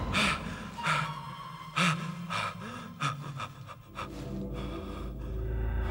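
A man gasping and panting in fright: about five sharp gasps, some voiced, in the first three seconds. A low rumbling drone rises over the last couple of seconds.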